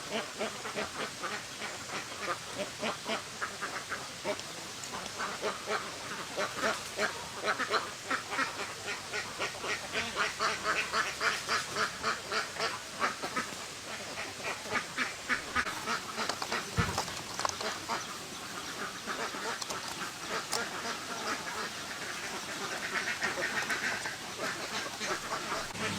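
A flock of farm ducks quacking, many short calls overlapping without a break, thickest in the middle stretch.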